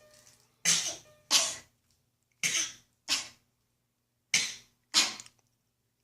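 A young child fake coughing: three pairs of short, deliberate coughs, about two seconds apart.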